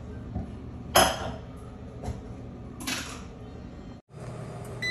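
Steady appliance hum with three short clattering knocks of kitchenware, the loudest about a second in. The sound drops out briefly just after four seconds.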